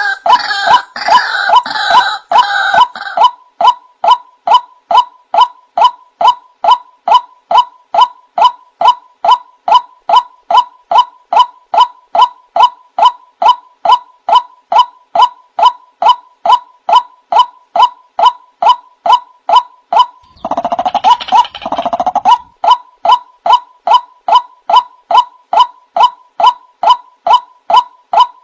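Male white-breasted waterhen calling: a monotonous run of short, honking 'kwaak' notes, about two to three a second. A denser, harsher gurgling stretch comes in at the start and again about 21 seconds in.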